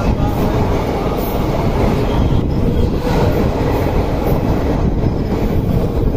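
Two express trains passing each other at speed on adjacent tracks, heard close up from one of them: a loud, steady rumble of the passing passenger coaches' wheels on the rails.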